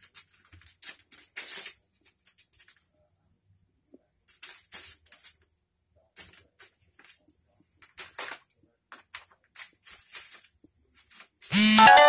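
Wrapping paper crinkling and rustling in short, irregular bursts as a cat paws and noses through it. Near the end a loud electric buzzer cuts in.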